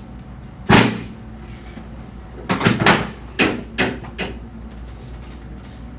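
Chiropractic drop table's drop section snapping down as the chiropractor thrusts on a vertebra: one loud clack about a second in, then a quick run of about six more sharp clacks.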